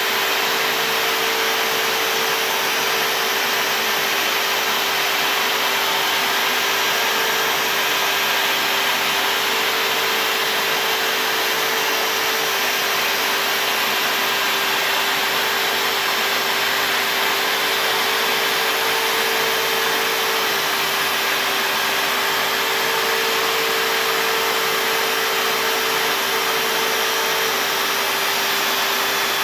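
CNC router spindle running steadily as its bit carves lettering into a white-faced MDF board, a continuous whine and hiss with a slightly higher tone that comes and goes every few seconds.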